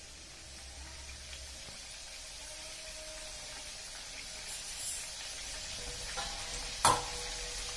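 Murukulu deep-frying in hot oil in a pan: a steady sizzle that slowly grows louder. A single sharp knock about seven seconds in is the loudest sound.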